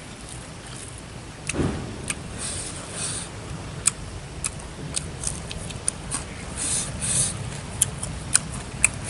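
Close-miked eating sounds: wet chewing and lip smacks mixed with many sharp little clicks, and one low thud about a second and a half in.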